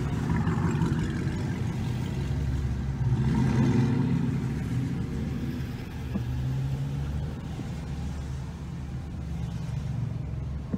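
Car engine running at low speed with a steady low rumble, heard from inside the cabin, swelling louder about three to four seconds in.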